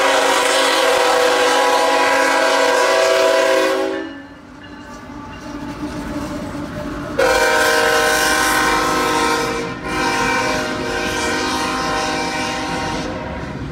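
CSX freight locomotive's air horn sounding a multi-note chord for a grade crossing: one long blast of about four seconds, then after a pause two more long blasts. Under it, the low rumble and wheel clatter of the train passing over the crossing.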